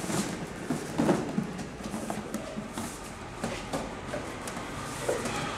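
Stretch lycra cover rustling and rubbing as it is pulled down over a portable display plinth, with light handling knocks, the loudest about a second in.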